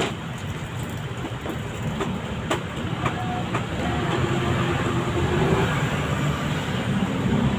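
Steady rumble of road traffic with a vehicle engine running, growing louder toward the end, and a few sharp light clicks.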